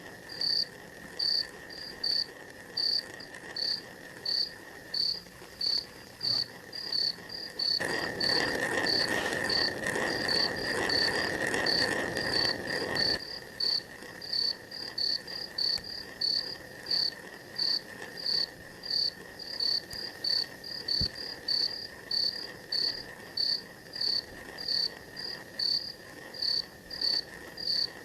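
Night insects: a high chirp repeating about twice a second over a steady shrill trill. About eight seconds in, a rushing noise comes up and holds for some five seconds, then cuts off.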